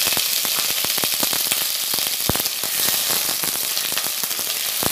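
Cut potato sticks sizzling hard in hot vegetable oil in a kadai, with many sharp pops and spits. Water left on the potatoes is what makes the oil spatter so much.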